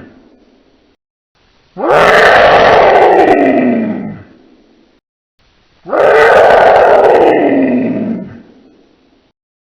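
Dinosaur roar sound effect, played twice: two long roars of about two and a half seconds each, each falling in pitch and fading out. The tail of an earlier roar dies away at the start.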